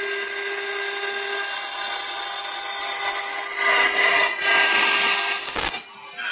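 CNC router spindle milling a stone slab under a water coolant jet: a steady high-pitched grinding hiss over a constant spindle tone. It cuts off abruptly near the end.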